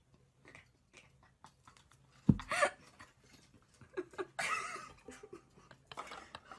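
Mostly quiet room broken by a few short bursts of a person's voice: a brief cry with a bump about two seconds in, and another short vocal burst a little after four seconds.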